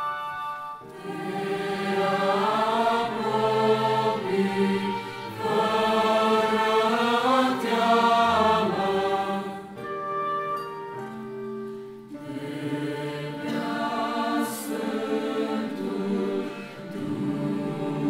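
Mixed youth choir singing a Romanian hymn in several parts, entering about a second in and growing softer for a short passage a little past the middle.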